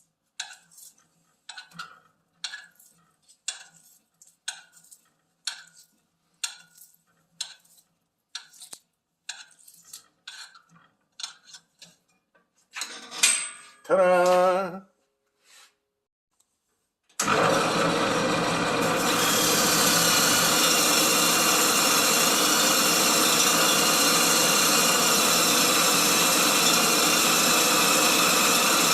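A series of short strokes, about one a second. Later a loud power tool starts and runs steadily.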